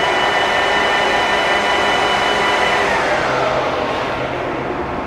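Graziano 20-inch swing engine lathe running under power with a steady whine from its drive, then falling in pitch from about three seconds in as it slows down.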